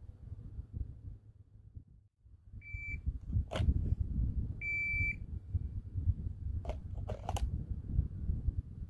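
Shot timer's start beep, then a single handgun shot about a second later, then the timer's longer par beep two seconds after the start. A few more sharp cracks come near the end, over wind rumble on the microphone.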